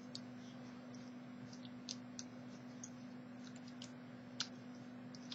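Faint, irregular small clicks of a homemade tool working inside a Master Lock M175 combination padlock's mechanism, over a steady low hum.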